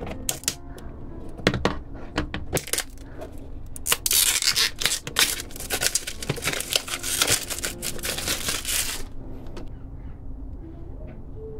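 Earphone packaging being handled and opened by hand: a few sharp clicks and taps, then about five seconds of dense rustling of packaging material that stops about nine seconds in.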